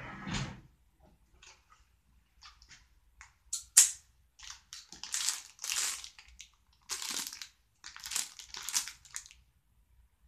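Plastic bag of chewy candies crinkling as it is handled and shaken, in a series of short bursts, the sharpest about four seconds in.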